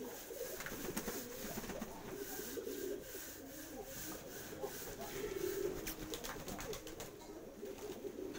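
Many domestic pigeons cooing at once, a continuous chorus of low, overlapping, warbling coos.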